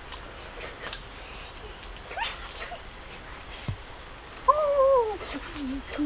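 Steady high-pitched insect trill, with one short, falling, voice-like call about four and a half seconds in.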